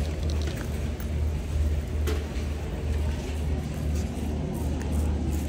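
Steady low rumble of store background noise, with a single sharp click about two seconds in.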